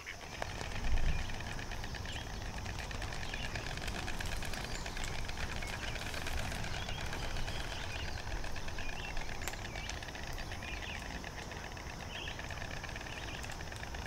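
Outdoor ambience: a steady low rumble and hiss with scattered faint bird chirps, and a low thump about a second in.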